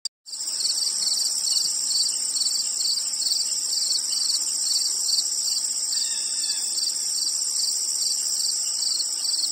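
Insects chirping: a steady high trill with a regular chirp about twice a second.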